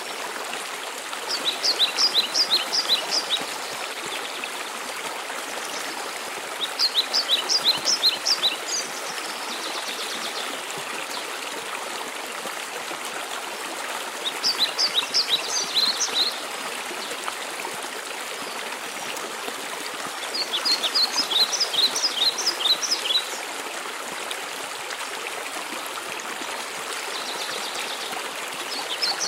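Steady rush of a waterfall, with a songbird singing a short phrase of quick, high notes about every six seconds, louder than the water: four phrases, and a fifth starting at the very end.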